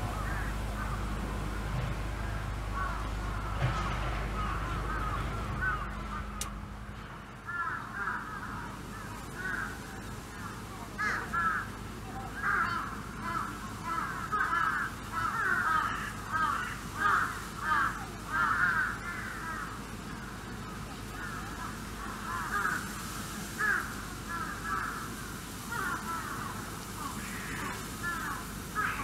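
Many animals calling over and over, short harsh crow-like calls overlapping several times a second, thickest from about eight seconds in. A low steady hum underneath stops about seven seconds in.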